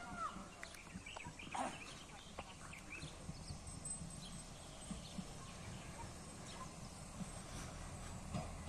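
Faint outdoor ambience: scattered short bird chirps over a low, steady rumble.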